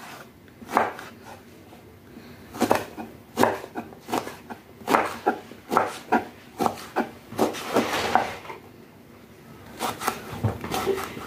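Kitchen knife dicing eggplant on a wooden cutting board: a run of irregular taps and knocks of the blade striking the board, with a short lull about nine seconds in.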